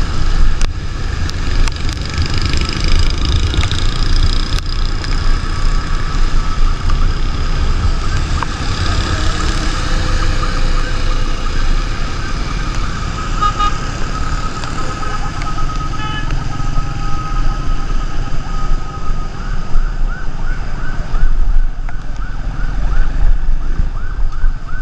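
Riding through wet streets: a steady low rumble of engine, tyres and wind, with a wavering siren-like tone over it that turns into a fast warble near the end.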